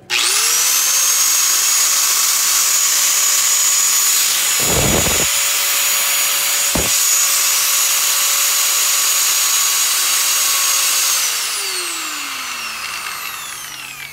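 Black & Decker KG8215 820 W angle grinder running with no disc fitted: the motor spins up at once to a steady high whine, holds it for about eleven seconds, then is switched off and winds down with falling pitch. A short knock about five seconds in and a click near seven seconds.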